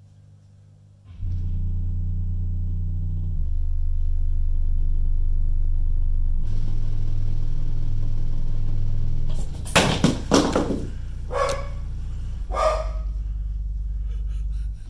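Home-theatre subwoofer playing a film soundtrack's deep sine-wave bass tones, starting about a second in, shifting in pitch a couple of times and stopping near the end; the bass is strong enough to shake the floor. A dog barks a few times partway through.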